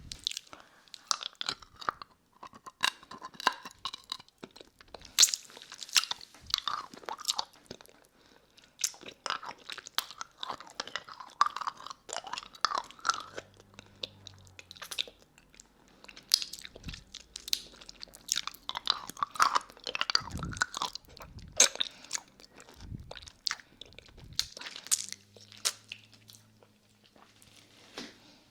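Close-up mouth sounds of a lollipop being sucked and licked: irregular wet smacks, clicks and slurps, with the hard candy clicking against the teeth, recorded close to a binaural microphone.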